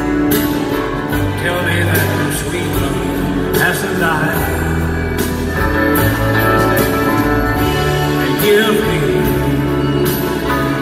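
A live country band plays a slow ballad through an arena sound system, with guitars over held bass notes. A wavering lead melody rises above the band twice, about four seconds in and again near the end.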